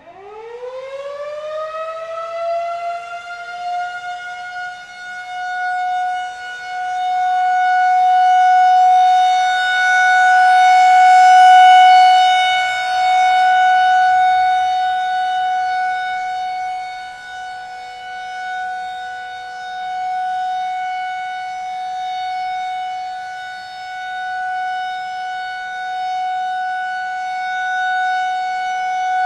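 Federal Signal 2001-SRNB outdoor warning siren starting up on a steady full-alert tone: the pitch climbs quickly in the first second or two, then holds steady while the loudness slowly swells and fades as the rotating siren head turns.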